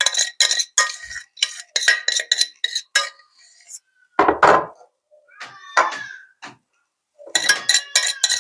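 Metal spoon scraping and clinking against a stainless steel saucepan as thick paste is scooped out, in quick runs of sharp, briefly ringing clinks. A duller knock comes about four seconds in and a short squeaky scrape around six seconds, then the clinking picks up again near the end.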